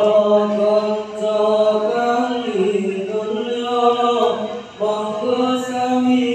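Men's voices chanting Islamic dhikr in drawn-out melodic phrases, the pitch stepping up and down, with a short breath pause about four and a half seconds in.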